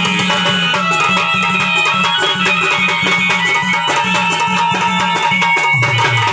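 Marathi folk music with a fast, steady hand-drum beat under held melodic tones.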